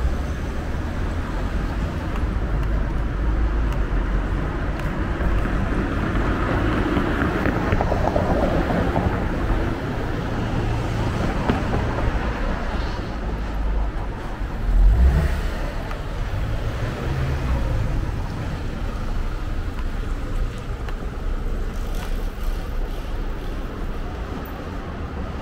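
City street traffic: cars passing with a steady low rumble, and a brief louder low swell about fifteen seconds in.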